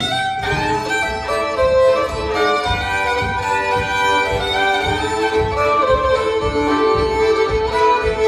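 Several fiddles playing a tune together, bowed with sustained, overlapping notes.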